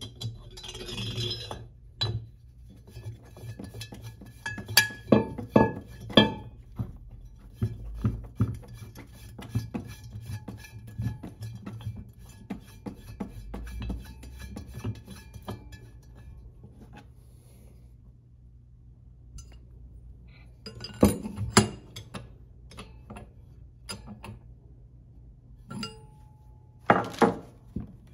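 Metal clinks, taps and scraping as a threaded core-drill adapter and a dry diamond core bit are handled and screwed together on the drill's arbor, with a few louder clusters of clanks.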